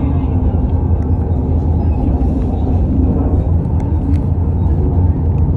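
Tyne and Wear Metro train running along the track: a steady low rumble of wheels on rail and traction equipment.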